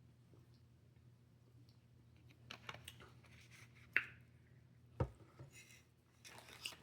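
Small clicks and scrapes of eating: utensils and food handled, with a sharp clink about four seconds in and a dull thump about a second later. A faint low hum runs underneath.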